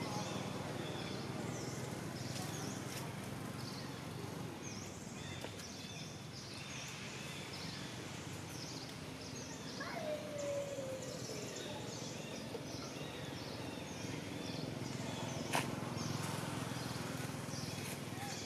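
Outdoor tree-canopy ambience: small birds chirping repeatedly in short high notes over a steady low hum. About ten seconds in, a single animal call slides down in pitch, and there is one sharp click a few seconds before the end.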